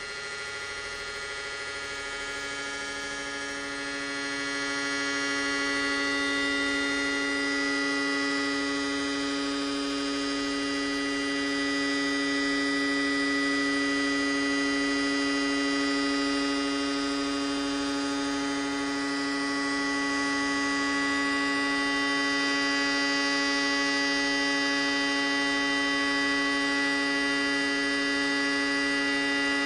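Sustained electronic drone: a dense stack of steady tones, with a strong low tone and a bright high one, swelling up over the first several seconds and then holding steady.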